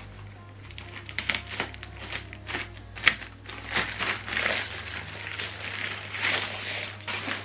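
Plastic wrapping crinkling and rustling in irregular bursts with small clicks as a soundbar section is pulled out of its protective sleeve.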